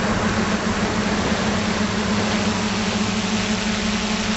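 Drone's electric motors and propellers running steadily in flight, a constant hum over a rushing hiss, heard from the camera on board.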